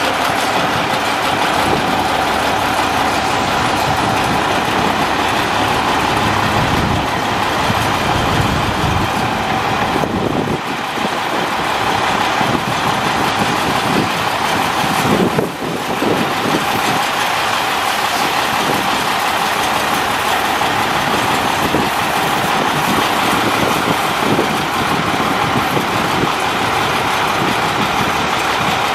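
Vactor 2110 combination sewer truck running, a loud steady mechanical noise from its diesel engines and machinery. The noise dips briefly about ten seconds in, and there is a short jolt about fifteen seconds in.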